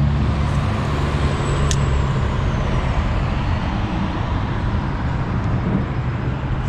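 Steady road-traffic noise from vehicles crossing a highway bridge overhead: a constant rumble and tyre hiss with a low hum underneath.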